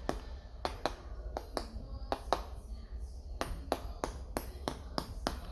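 A quick, irregular series of sharp crisp taps and cracks, about three or four a second, on the crackling skin of a roasted lechon belly: testing how crispy the skin is. A steady low hum sits underneath.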